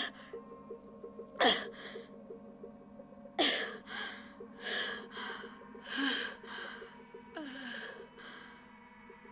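A woman gasping for breath in distress: three sharp gasps, some with a short falling voiced cry, then a run of heavy panting breaths that fades out near the end. Faint background music runs underneath.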